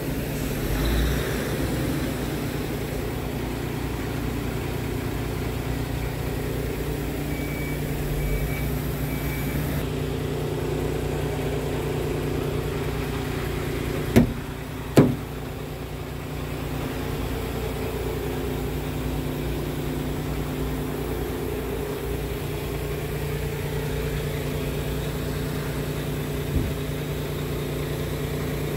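Scania R truck's diesel engine idling steadily, with two sharp knocks about halfway through.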